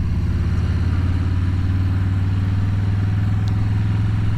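Motorcycle engine running at a steady speed while riding, heard through a helmet-mounted microphone with road and wind noise.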